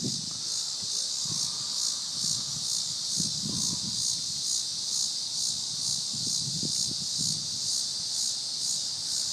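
Cicadas in the trees buzzing in chorus: a steady, high buzz that swells and fades evenly a few times a second.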